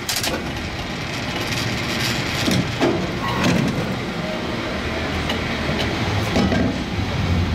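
San Francisco cable car in motion: a steady rumble and rattle of the car on its rails, with a few sharp clanks along the way.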